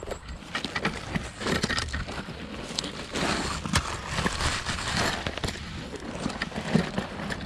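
Dry reeds and undergrowth rustling and crackling right against the microphone as someone pushes through them, with many small sharp snaps.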